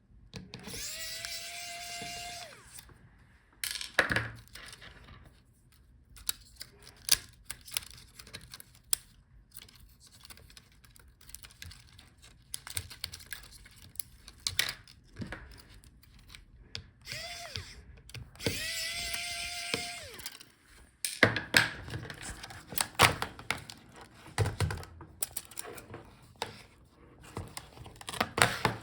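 Electric screwdriver whining twice for about two seconds each, backing out the laptop's touchpad screws. Between the runs come many small clicks and taps of screws, tools and plastic parts being handled.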